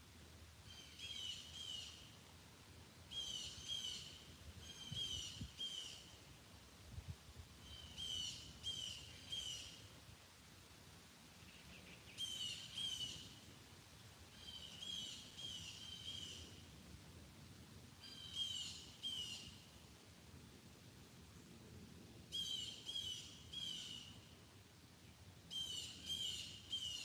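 A songbird singing: short phrases of three or four quick down-slurred notes, repeated about every two to three seconds throughout.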